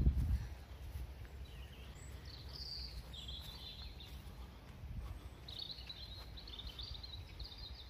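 Small birds chirping and twittering outdoors, in short bursts about two and a half seconds in and a longer run from about five and a half seconds, over a low steady rumble that is loudest in a brief low bump at the very start.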